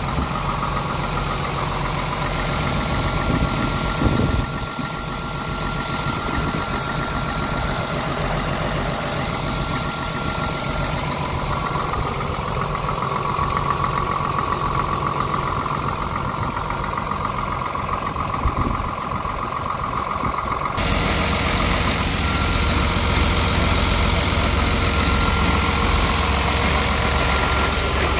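Scania R tractor unit's diesel engine idling steadily. About two-thirds of the way through, the sound grows louder and heavier in the low range.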